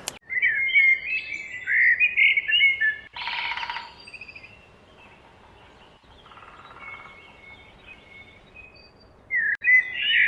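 Songbirds singing: quick, high twittering chirps, a short harsh buzzy call about three seconds in, then a few quieter seconds before loud chirping returns near the end.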